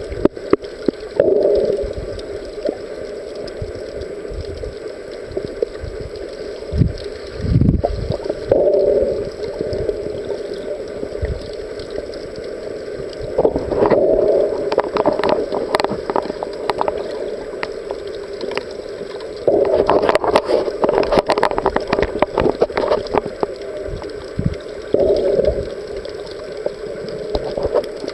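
Underwater sound picked up by a submerged camera: a muffled, steady water rush that swells every few seconds, with scattered clicks and crackles, densest a little past two-thirds of the way through.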